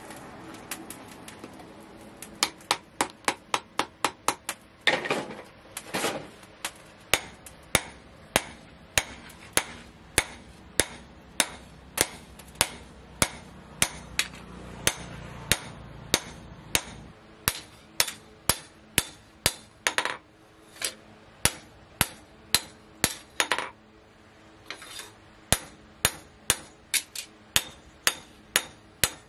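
A grinding wheel's motor runs for the first two seconds or so, then a hand hammer strikes a steel knife blade laid on a steel post anvil over and over, each blow a sharp metallic ring: a quick run of blows at first, then about one to two a second.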